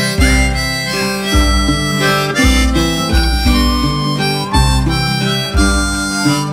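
Instrumental break in a folk song: a harmonica plays a melody, some notes sliding in pitch, over guitar accompaniment.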